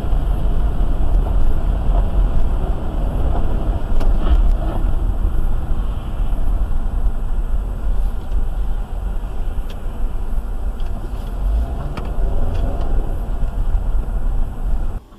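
Car driving on a wet road, a steady low rumble of engine and tyres heard from inside the cabin through a dashcam microphone, with a few faint ticks. It cuts off abruptly near the end.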